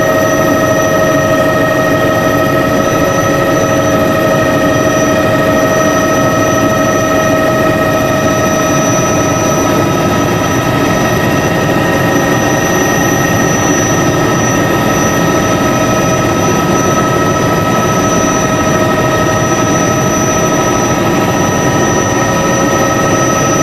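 Helicopter in steady flight, heard from inside the cabin: a loud, even drone of engine and rotor with several constant whining tones above it.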